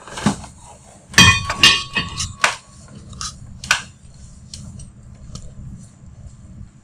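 Metal-on-metal clanks and clinks, some ringing briefly, as a steel valve wrench works the handwheel of a steam block valve being opened. The clanks come in a quick cluster in the first half, then thin out to a few fainter taps.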